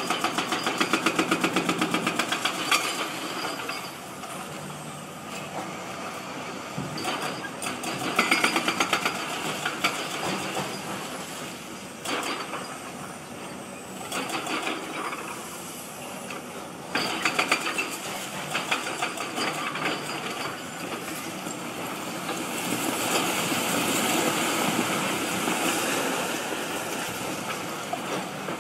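Long-reach demolition excavator working on a concrete building, its diesel engine running under irregular load surges. Near the end a section of the building collapses in a long rush of falling debris.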